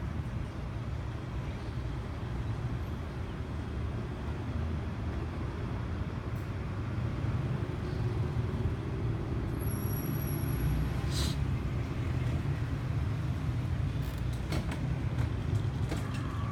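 Steady low rumble of road traffic, with a few sharp clicks in the last few seconds.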